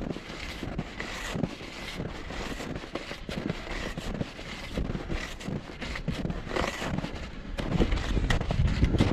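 Hunting skis moving over snow in a steady stride, about two strokes a second. Wind rumbles on the microphone and grows louder near the end.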